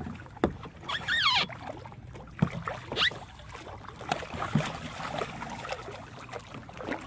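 Knocks and water sloshing around a kayak, with a brief squealing glide about a second in and a shorter rising squeal around three seconds.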